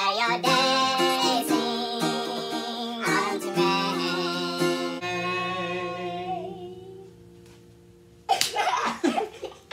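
A man and a young girl singing together over a strummed steel-string acoustic guitar; about five seconds in, the last chord rings and fades away. Near the end there is a sharp slap followed by voices.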